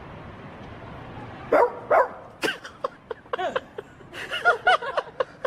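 A man imitating a dog: two loud barks about a second and a half in, then a run of shorter barks and bursts of laughter.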